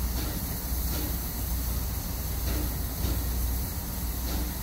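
Pt47 two-cylinder steam locomotive pulling slowly out with its train: slow, unevenly spaced exhaust chuffs over a steady low rumble.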